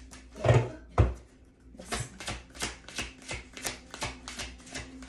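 A tarot deck being shuffled by hand: two heavy thumps, then a quick run of short card slaps at about five a second.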